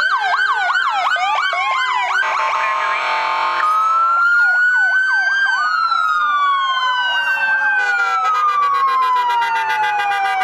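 Several emergency-vehicle sirens sounding together as sheriff's patrol vehicles drive slowly past. Slow wails rise and fall over several seconds, layered over rapid yelp sweeps, with a harsher buzzing stretch lasting about a second and a half about two seconds in.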